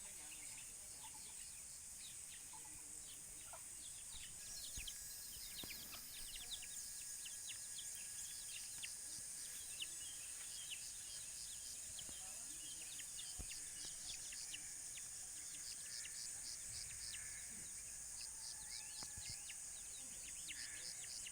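Birds chirping: a dense run of short, high calls starting about four seconds in, over a steady high drone of insects.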